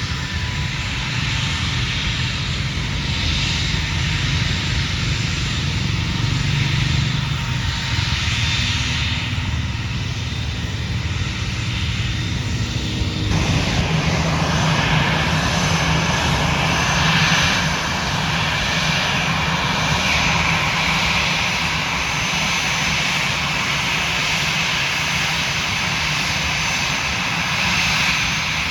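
Airliner engines running with a steady, loud drone. The sound changes abruptly about thirteen seconds in.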